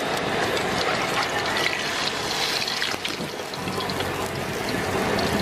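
Hot oil sizzling and crackling steadily in a wok around a frying pork omelet, with a continuous hiss and many small pops.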